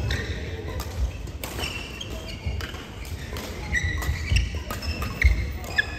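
Doubles rally on an indoor court: sharp racket-and-ball hits about every half second, shoes squeaking on the court floor, and dull footfall thumps.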